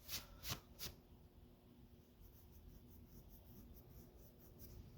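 Near silence: room tone with a faint steady low hum, and three short faint clicks or rustles in the first second.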